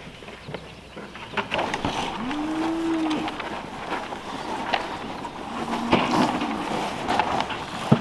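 Cattle mooing: one call about two seconds in that rises and then falls in pitch, and a second, fainter, flatter moo around six seconds in.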